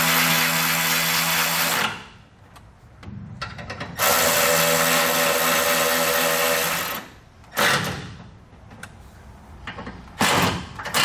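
Cordless electric ratchet running in two long bursts of about two and three seconds, then two short blips near the end, driving button head cap screws into a steel upper frame bracket until they are snug.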